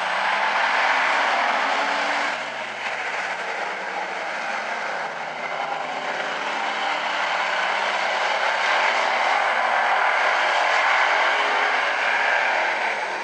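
A pack of hobby stock race cars at racing speed, their engines blending into one loud, steady din that dips a little a few seconds in and swells again.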